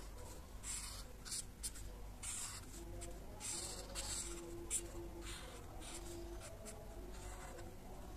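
Felt-tip marker scratching across paper in a series of short coloring strokes, about a dozen quick hissy swipes.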